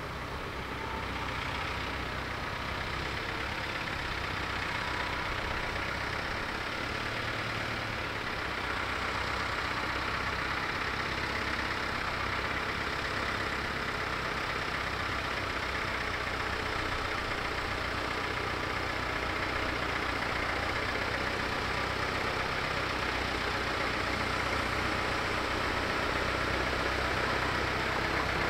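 Ford 5600 tractor's three-cylinder diesel engine running steadily as the tractor drives along, growing gradually louder as it comes closer.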